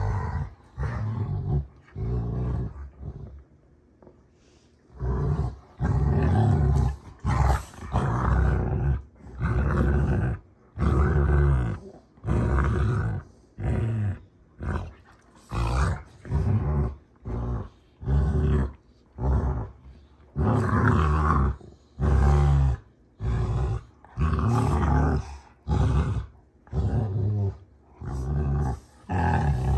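Rottweilers play-fighting, growling in rough bursts about once a second, with a pause of a couple of seconds near the start.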